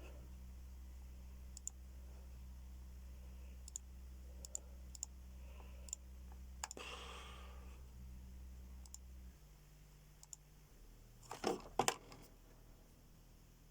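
Bass shaker under a seat humming with a low test tone; the hum cuts off about nine seconds in. Light clicks are scattered throughout, and a couple of louder knocks come near the end.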